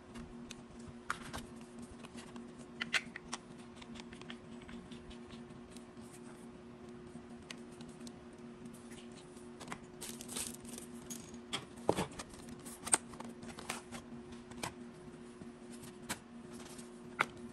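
Unboxing handling noise: scattered light clicks and knocks of a plastic gimbal and its mini tripod being handled, with rustling of paper cards and packaging, a few sharper knocks in the second half. A steady low hum runs underneath.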